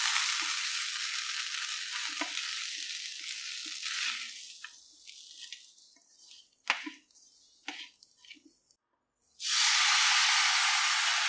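Shallots and spice powders sizzling in an oiled pan while a wooden spatula stirs them, with a few sharp knocks of the spatula against the pan; the sizzle thins out about halfway through. Near the end, water poured into the hot pan makes a loud, steady rush.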